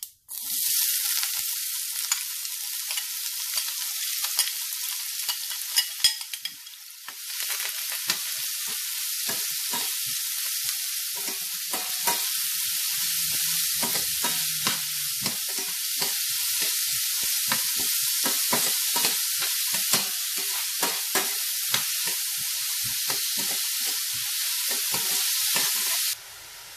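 Chopped onion, shallots, curry leaves and ginger sizzling as they drop into hot oil in a stainless steel pan, with a metal spoon scraping and tapping against the pan as they are stirred. The sizzle dips briefly about seven seconds in and cuts off suddenly near the end.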